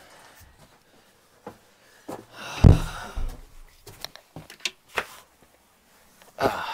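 Footsteps and scuffing as a person climbs out of an underground root cellar, with one heavy thump about two and a half seconds in, then a few short knocks and clicks.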